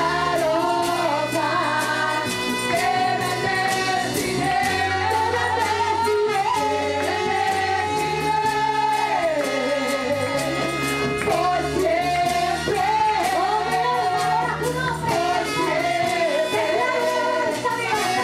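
Live gospel worship music: a group of women singing together into microphones, backed by a band of electric guitar, bass and drums.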